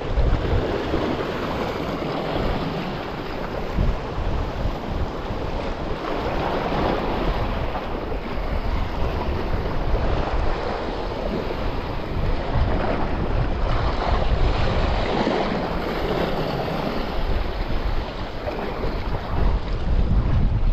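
Sea waves washing against shore rocks, with wind buffeting the microphone in a steady low rumble.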